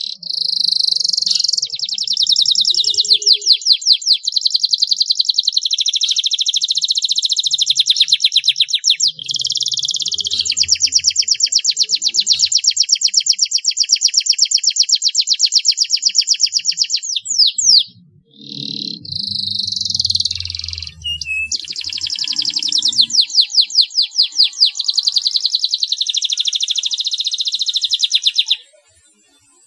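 Domestic canary singing long rolling trills of rapid repeated high notes. It sings two long phrases with a short break about 18 seconds in, and stops shortly before the end.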